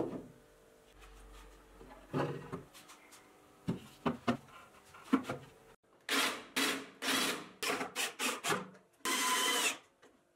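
Wooden panels knocked and set down on a workbench, then a cordless drill boring into a painted particleboard panel in a quick series of short bursts. Near the end the cordless drill/driver runs once for under a second with a steady motor whine, driving a screw into the wooden box.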